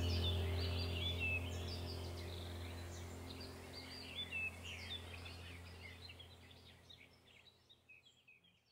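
Background soundtrack of small birds chirping over a steady low hum, fading out gradually to silence near the end.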